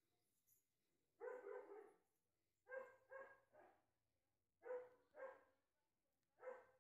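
A dog barking faintly in short bursts, about seven or eight barks in four groups of one to three.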